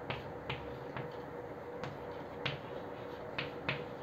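Chalk clicking and tapping against a chalkboard while writing: about six short, sharp clicks at uneven intervals, over a faint steady hum.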